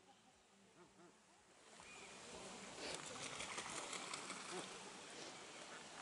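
Water splashing as a bar-headed goose bathes in the pond. The splashing starts about two seconds in, is busiest and most crackly around the middle, then eases off.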